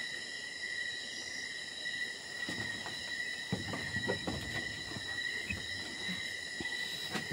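Night insects chirring steadily in a constant high drone, with faint rustles and soft knocks about two and a half to five seconds in.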